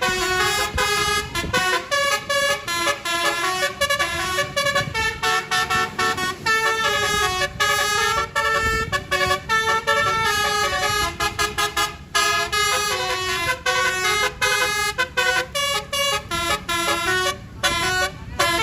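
Telolet horn, a multi-tone musical vehicle horn, playing a long tune: a fast run of short notes stepping up and down in pitch, with brief breaks between phrases.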